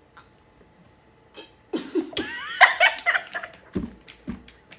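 Two people laughing in short bursts, starting about a second and a half in: a woman breaking up in high-pitched laughter, with a man laughing along.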